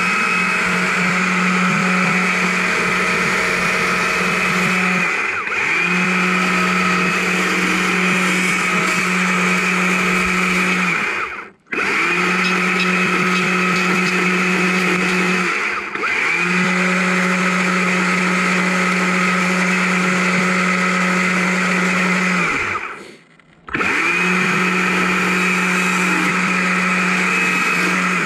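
Chainsaw cutting into a small log at full speed in long, steady passes, carving a wing into an owl. The saw lets off briefly between cuts four times, twice going almost silent for a moment.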